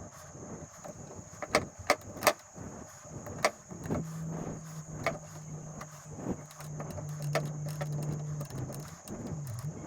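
Sharp clicks and taps of a rubber spline being pressed into the groove of an aluminium fly screen frame, the mesh held taut at a corner. A steady low hum comes in about four seconds in and dips in pitch near the end.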